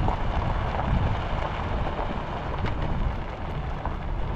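Wind buffeting the microphone outdoors: a steady rushing with heavy, uneven low rumble.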